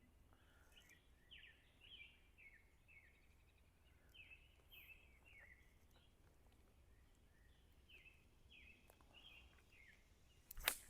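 Faint bird song: runs of short, high, falling notes, about two a second, in two phrases. A sharp click near the end.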